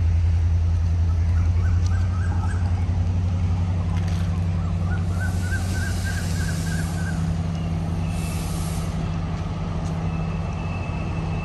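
Diesel multiple unit's engine giving a steady low drone as the train approaches, with a hissing swell about five seconds in and small chirps over the top.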